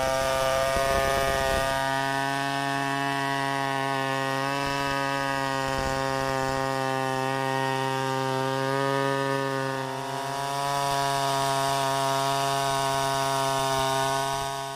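Stihl 070 two-stroke chainsaw held at full throttle, ripping lengthwise through a gmelina log in freehand chainsaw milling. A steady, high engine note that dips slightly about ten seconds in.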